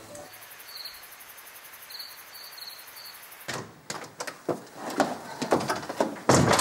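Quiet room tone with a few short, faint high chirps, then from about halfway a door and footsteps: an irregular run of knocks and clicks, with a louder knock near the end.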